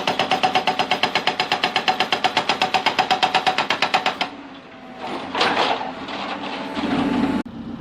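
Backhoe-mounted hydraulic breaker hammer pounding stone, a rapid steady rattle of about nine blows a second. It stops a little over four seconds in, leaving the machine's engine and a brief rush of noise.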